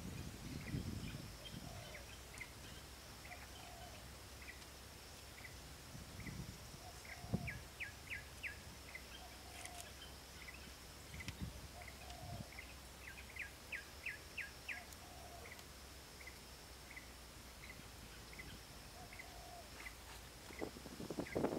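Birds calling outdoors: short high chirps repeating about once a second, broken three times by quick runs of five or six chirps, with fainter lower calls in between, over a faint steady high whine. A few soft low knocks from bamboo being handled.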